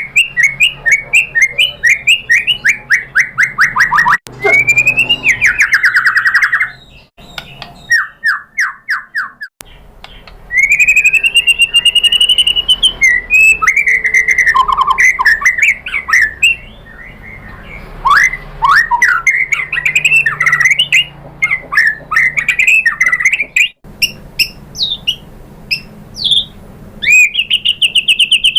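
White-rumped shama (murai batu) singing: fast runs of rapidly repeated notes, several falling in pitch, alternating with varied whistled and chattering phrases. The song is broken by a few abrupt cuts.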